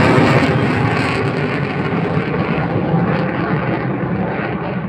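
A HAL Tejas fighter jet flying away overhead: the steady noise of its single turbofan engine slowly fades, losing its highest hiss as it goes.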